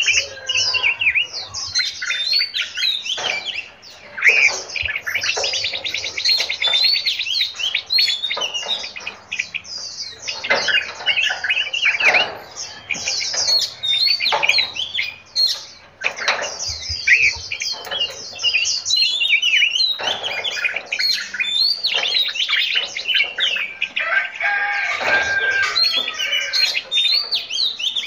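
Many small songbirds in an aviary chirping, whistling and trilling together in a dense, overlapping chorus, with a couple of brief lulls.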